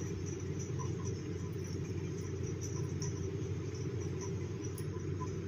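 Steady low background hum or rumble, even in level throughout, with a few faint light ticks.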